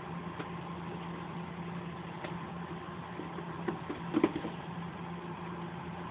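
A steady mechanical hum, with a few short knocks and a louder cluster of knocks about four seconds in.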